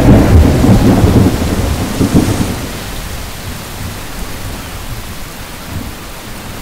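Sea surf breaking on the shore: a heavy, rumbling crash in the first couple of seconds that fades into a steady wash of water.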